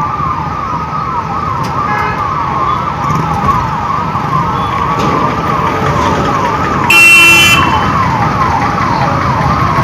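Police vehicle siren wailing rapidly up and down without a break over the rumble of the vehicle, with a brief loud horn blast about seven seconds in.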